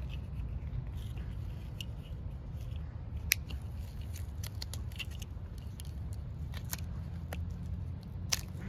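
Irregular small sharp clicks and scrapes of hands working at something fastened around the wrist, two clicks standing out louder, about three seconds in and near the end, over a low steady rumble.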